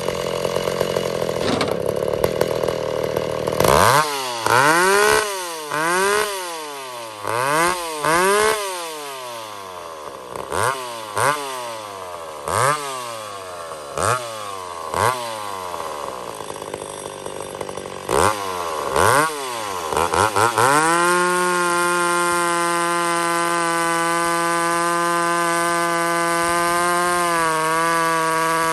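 McCulloch 850 two-stroke chainsaw with an aftermarket exhaust, its high-speed jet richened about a quarter turn. It runs under load in a cut at first, then is revved up and let back down a dozen or so times, and for the last third it is held steady at high revs.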